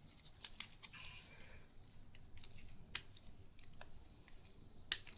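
Light, irregular clicks and scratches of a razor blade working under the glued screen of a Fiio M6 music player, prying the LCD free, with one sharper click near the end.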